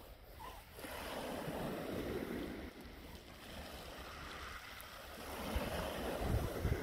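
Sea waves washing on a shingle beach, swelling twice, with wind rumbling on the microphone louder near the end.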